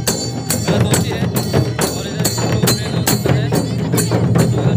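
Adivasi folk drumming on barrel hand drums with a jingling, tambourine-like edge, keeping a steady beat of about three strokes a second.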